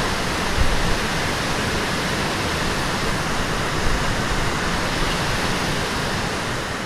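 Loud, steady rushing of fast-moving water, such as a river in full spate, easing slightly near the end.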